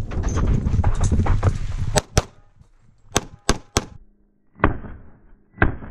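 A Limited-division competition pistol fired fast at targets. About two seconds of loud rumble and clatter as the shooter moves comes first, then seven shots in quick pairs and singles.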